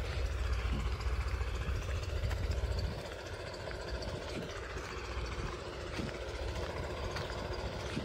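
A vehicle engine running steadily with a deep, low rumble that drops in level about three seconds in.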